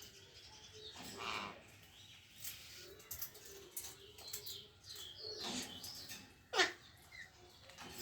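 Parrot making scattered soft calls and noises, with one loud call about six and a half seconds in that sweeps sharply down in pitch.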